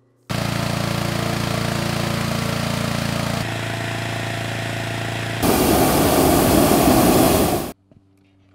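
A Singer industrial sewing machine running fast, then a steady engine-driven machine, then the propane burner of a hot air balloon firing with a loud roar for about two seconds before cutting off suddenly.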